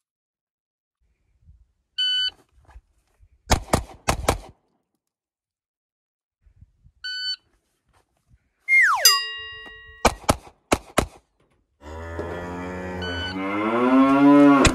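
Pistol drills against a shot timer: a timer beep, then a quick string of about four shots from a SIG P365X. A second beep, a loud falling tone that holds steady for about a second, then four shots from a Kel-Tec pocket pistol. Near the end comes a loud, long, drawn-out low call that rises in pitch, with a third timer beep faint beneath it.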